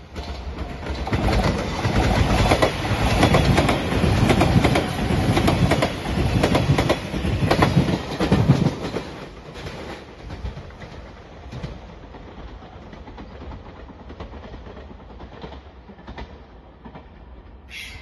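Shiokaze limited express, a five-car electric train, passing close by: wheels clicking over the rail joints for about eight seconds, then fading as it moves away.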